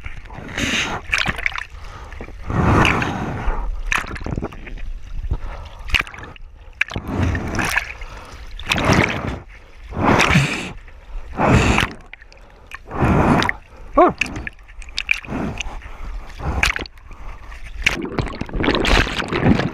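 Water splashing and sloshing in repeated surges, one every second or two.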